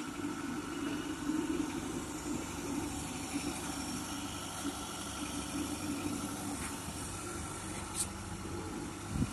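Steady hum of an idling engine over a light hiss, with a sharp click about eight seconds in and a low thump near the end.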